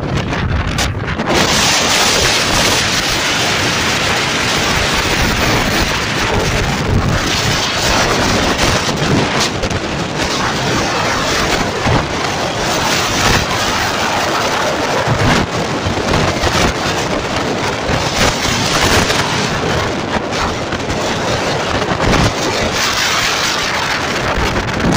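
Strong, gusty wind buffeting the phone's microphone: a loud, continuous rumbling rush that swells and eases every few seconds.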